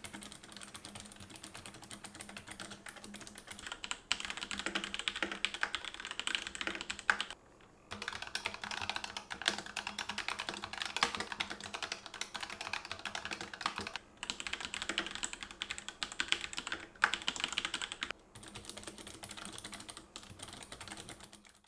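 Fast typing on Razer gaming keyboards, played in several back-to-back stretches of a few seconds each with brief breaks between. It switches between the Ornata V2's mecha-membrane keys, which sound like a clicky mechanical keyboard, and Razer's linear-switch keyboards.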